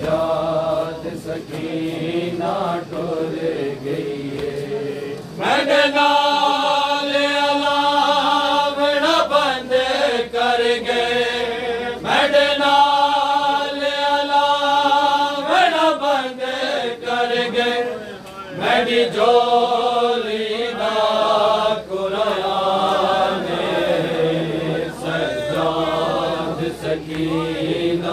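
Men's voices chanting a noha, a Shia mourning lament, unaccompanied. The chant grows louder about five and a half seconds in, with lines sung in long held notes.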